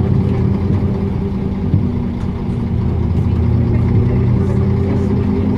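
Vintage bus engine running steadily while the bus is under way, heard from inside the passenger cabin; its note rises slightly about two seconds in.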